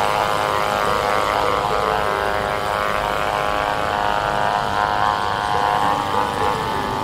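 Battery-powered cordless pressure washer running steadily, its small motor and pump giving an even drone as it sprays soapy water.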